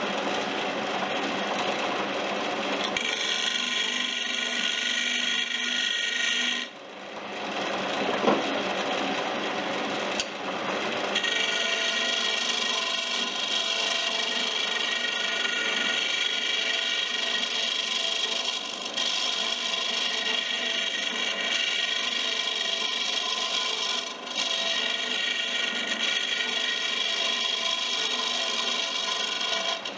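King Canada wood lathe running while a turning tool cuts a spinning Western red cedar paddle loom, a steady whine with scraping cutting noise. The cut breaks off about seven seconds in and picks up again a few seconds later.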